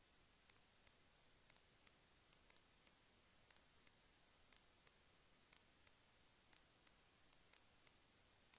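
Near silence: faint hiss with light, sharp ticks recurring at roughly two to three a second in a regular pattern, like a clock ticking.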